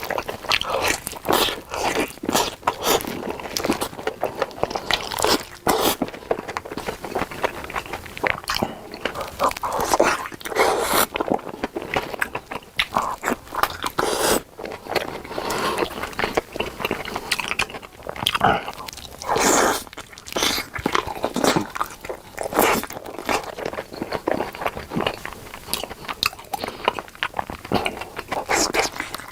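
Close-miked biting and chewing of sausages: many irregular crunchy bites and chewing sounds.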